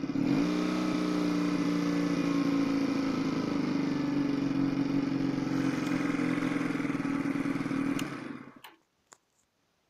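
AJS NAC 12's 125cc single-cylinder engine idling steadily during its cold-start warm-up, after a brief dip and pick-up in revs about half a second in. It is switched off at the ignition about eight and a half seconds in and dies away, followed by a single click.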